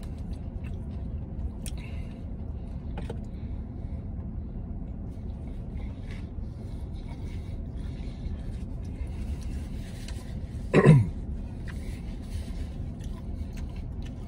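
Steady low rumble of a truck idling, heard from inside the cab, with faint chewing of a soft wrap. About eleven seconds in comes a short, loud vocal sound that falls in pitch.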